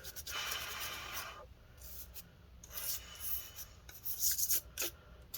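A small brush scrubbing over laptop components to loosen dust and a white powdery residue: one long stroke first, then a run of shorter, scratchy strokes.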